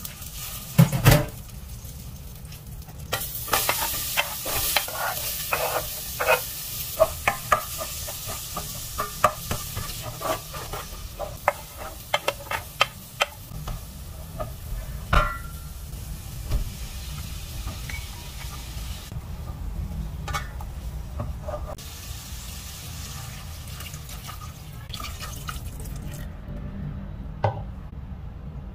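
Onions and carrots sautéing in butter in a stainless steel pot: a steady sizzle, with a spatula scraping and clicking against the pot many times. The sizzle dies down near the end.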